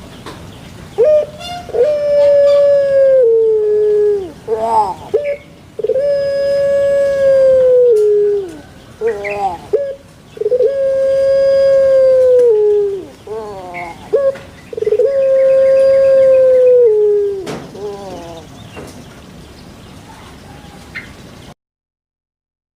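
A dove cooing: four long drawn-out calls about two seconds each, each led in by short notes and dropping in pitch at the end.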